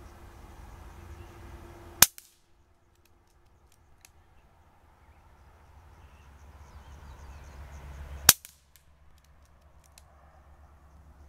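KalibrGun Cricket .22 PCP air rifle firing two shots about six seconds apart, each a single sharp crack. A few faint clicks follow each shot.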